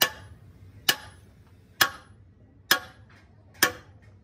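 Sledgehammer striking metal: five sharp blows evenly spaced about a second apart, each with a short ring.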